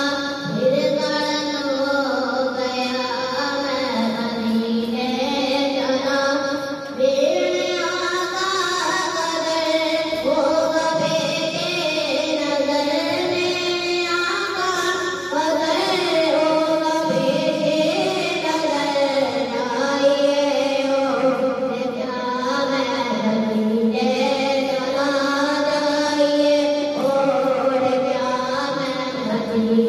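A boy singing a naat, a devotional Urdu hymn in praise of the Prophet, into a handheld microphone, in a melodic chant with long held notes.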